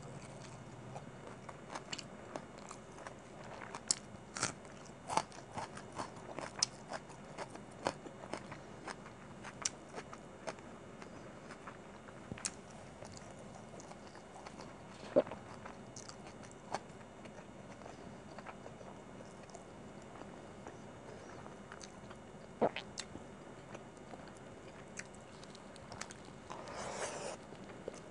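Close-miked mouth sounds of someone eating chicken biryani: chewing with scattered wet clicks and smacks, and fingers working through the rice on the plate. There is a short, louder rustle near the end.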